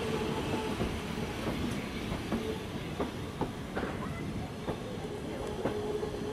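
Bwxz passenger coaches rolling past at low speed, their wheels clicking irregularly over rail joints over a steady rumble. A faint wheel squeal comes and goes.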